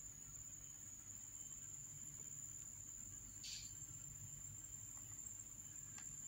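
Faint steady high-pitched whine over a low hum, with one brief soft hiss about three and a half seconds in.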